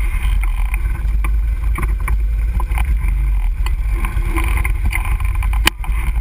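ATV engine running at trail speed under a heavy low rumble of wind and jolting on the mounted camera's microphone, with scattered clicks and knocks from the rough ground and one sharp knock near the end.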